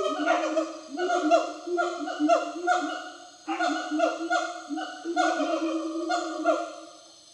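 Wild gibbons calling in the forest: a chorus of repeated hooting notes, several a second and overlapping, each with a short pitch glide. It breaks off briefly about halfway through and fades near the end.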